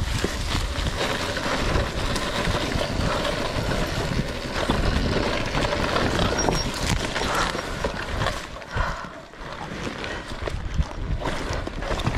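RFN electric dirt bike ridden over rough grass and loose rocks: a steady rumble of tyres and suspension with frequent clattering knocks over the bumps. It gets somewhat quieter about two-thirds of the way through.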